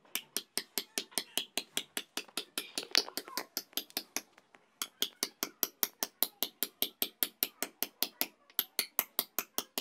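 Hammer tapping a steel chisel against a stone grinding roller (the pestle of a shil-nora spice grinder), dressing pits into its surface: rapid sharp taps, about five a second, with a short pause a little before halfway and another near the end.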